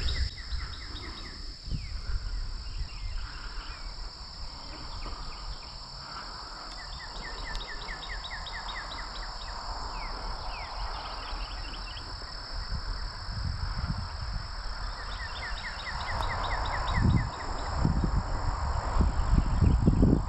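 Rural field ambience: a steady high insect drone, with several bursts of rapid trilling. Low rumbling on the microphone grows near the end.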